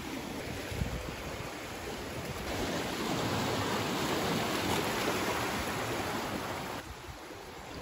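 Sea surf washing against a rocky shore: a steady rush of water that grows louder about a third of the way in and falls away near the end, with some wind on the microphone.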